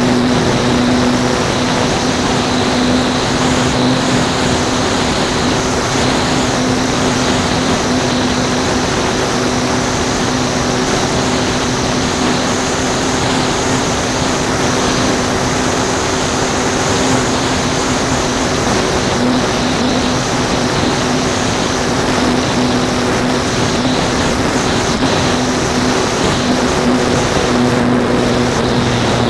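A radio-controlled airplane's motor and propeller running steadily in flight, recorded on the onboard camera under heavy wind rush over the airframe. The hum dips briefly about two-thirds of the way through, then comes back.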